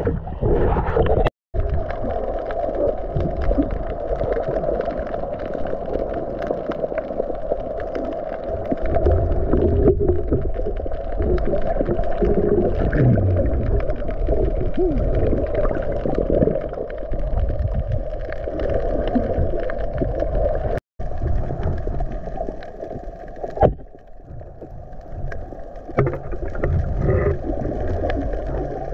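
Water heard underwater through the camera's housing: a muffled, dull rushing and gurgling as the diver swims, with faint crackling. It cuts to silence twice for an instant, once near the start and once about two-thirds through.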